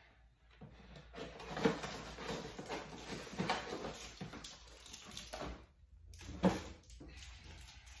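Kitchen handling noises: rustling and a few light knocks as someone moves about, with one sharp click about six and a half seconds in.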